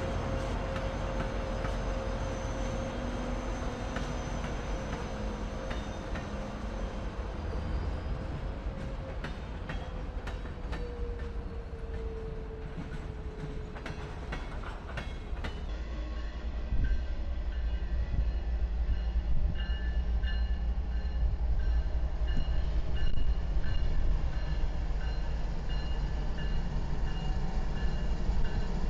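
Diesel-hauled freight trains passing: locomotives running and rolling by, then hopper cars rumbling over the rails with scattered wheel clicks. About halfway through the sound switches to a second freight rolling past with a louder, steady rumble.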